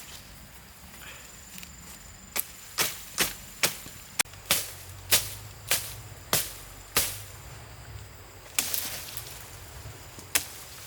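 Wood being chopped: a run of about a dozen sharp strikes, roughly two a second, then two more single strikes after a pause.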